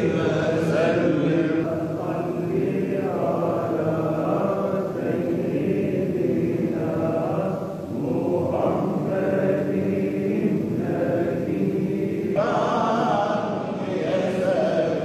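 Voices chanting an Islamic religious recitation, unbroken and steady.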